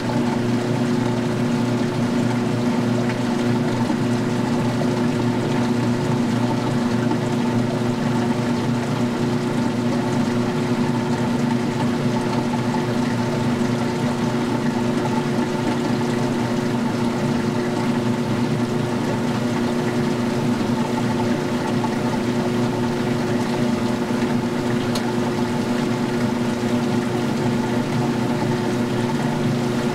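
Magic Chef 20-pound washer in its wash spin and drain: the drain pump and spinning tub give a steady hum over the rush of water being pumped out. The wash water is draining from the tub.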